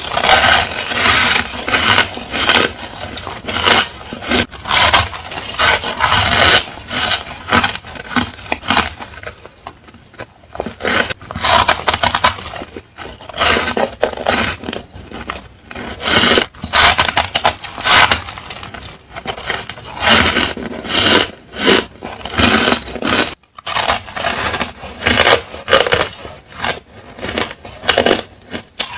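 Ice being bitten and crunched between the teeth, close to the microphone: a fast, irregular run of loud cracking crunches with a few short pauses.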